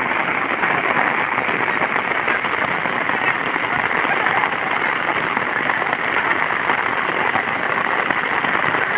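Rain falling steadily on a grass field and its puddles: an even hiss with no let-up.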